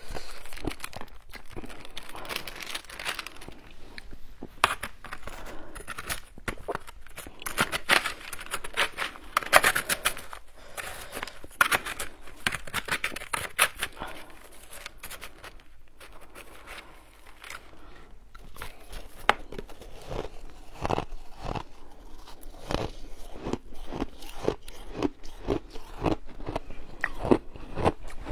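A metal spoon scraping and crunching through a plastic tub of shaved ice, with a small plastic packet crinkling as it is handled over the tub. In the second half, the spoon's short crunching stabs come quickly, about two a second.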